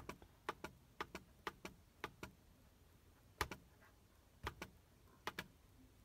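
Faint, sharp clicks of a computer mouse button, about eight of them at uneven intervals, each a quick press-and-release pair, as tools are picked and areas of the drawing are filled.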